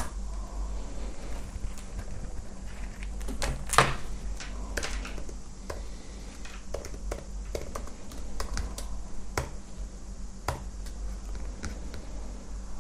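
Computer keyboard keys clicking in short, irregular runs of keystrokes, over a steady low hum.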